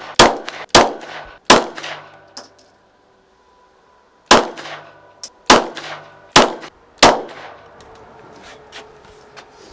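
Glock 17 9 mm pistol shots, seven in all: three in quick succession, a pause of a few seconds, then four more about a second apart, each ringing in the range's echo.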